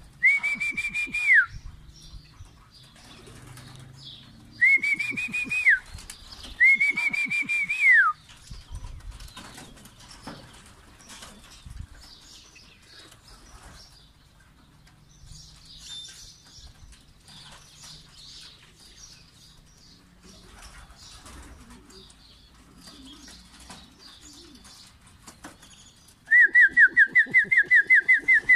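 Whistle signals: three long whistle notes in the first eight seconds, each rising and then falling, then a rapid trilling whistle near the end. This is a pigeon fancier's call bringing homing pigeons down into the loft to be fed.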